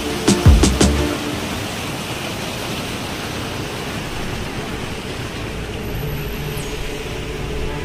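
Background music with a few sharp drum hits in the first second, then a steady, even hiss with faint held notes underneath.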